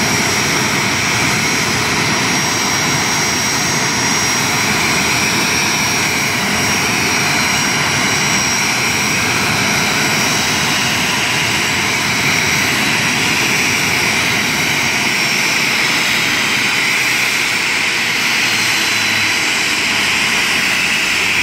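Boeing 737-300's CFM56 turbofan engines running at ground idle: a steady jet rush with a thin high whine that fades out about halfway through.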